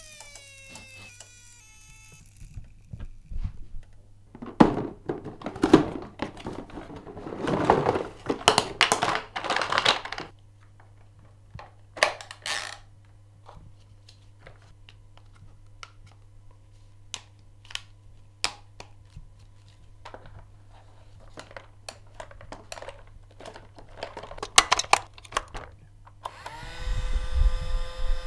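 Plastic toy parts clicking, knocking and rattling as a bubble lawn mower toy is handled and snapped together. A toy helicopter's small electric motor winds down with a falling whine at the very start, and about a second or two before the end the bubble mower's small motor starts with a steady whine.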